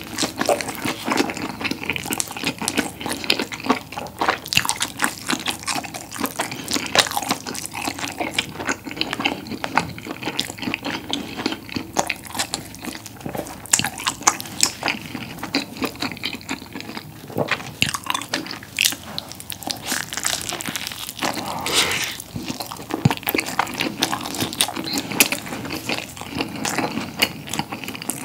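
Close-miked chewing and biting of a mouthful of rolled-up combination pizza: a dense, uneven run of short mouth clicks and smacks.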